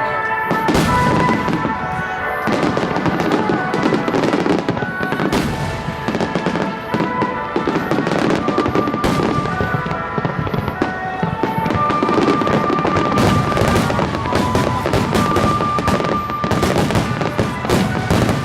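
Fireworks bursting and crackling in rapid, dense succession, with music playing underneath in held tones.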